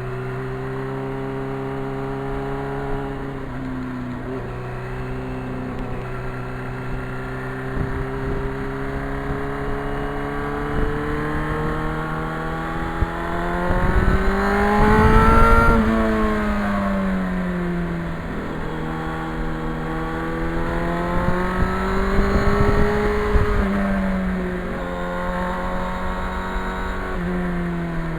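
Yamaha FZR inline-four motorcycle engine running under way: it holds a steady pitch with a gear change a few seconds in, then climbs in pitch as it accelerates to a peak about halfway and eases off. It rises again briefly and shifts near the end, with a low wind rumble loudest when the engine is highest.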